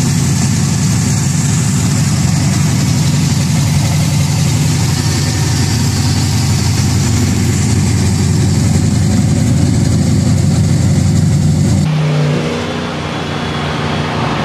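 Chevy LS-series pushrod V8 swapped into a Nissan S-chassis coupe, running loud and steady with the hood open. About twelve seconds in it cuts abruptly to a quieter car engine on the road.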